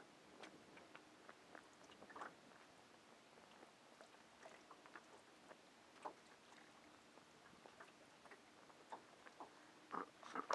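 Near silence with faint scattered small clicks and ticks, a few louder ones close together near the end.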